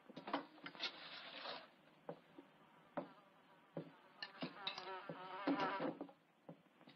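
A metal spoon clinks and scrapes against a frying pan of beans and a plate, a sharp click every second or so. An insect-like buzz comes in two spells, about a second long near the start and again from about four to six seconds in.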